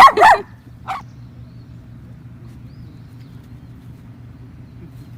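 A dog barking: two loud barks right at the start, then one shorter, softer bark about a second in. After that only a faint steady low hum remains.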